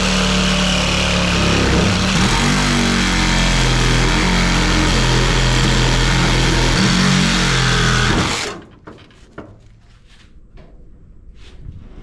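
Cordless reciprocating saw cutting through the seized steel lower door hinge of a 1960 VW Beetle, its motor note wavering as the blade works, then stopping abruptly about eight seconds in. A few light metal knocks follow.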